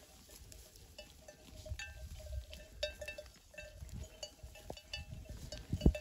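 Bells on a flock of sheep clinking and tinkling irregularly, many small rings overlapping, over a low rumble. A single dull thump sounds near the end.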